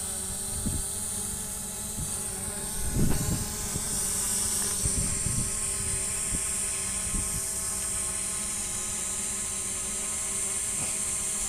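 JJRC X17 quadcopter's brushless motors and propellers buzzing steadily as it hovers close by, with a few low thumps, the strongest about three seconds in.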